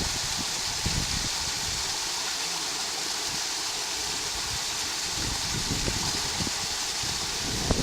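Water from a pool's cascade waterfall falling steadily into the pool, an even hiss.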